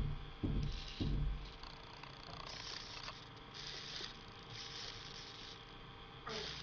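Small RC servo motors whirring in short bursts of about half a second, several times, as they are run back and forth in a test. There are three low knocks in the first second or so.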